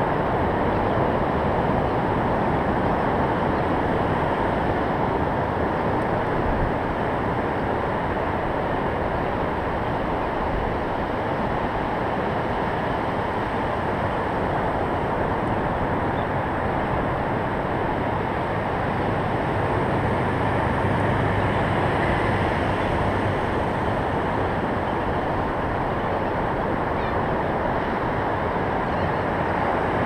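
Ocean surf breaking and washing up a sandy beach: a steady, unbroken rush with a low rumble.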